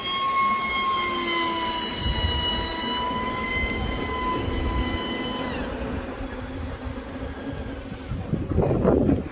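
Remote-controlled model airplane's motor and propeller whining in flight, a high steady tone that dips slightly in pitch about a second in and falls away about five and a half seconds in. A loud rush of noise comes near the end.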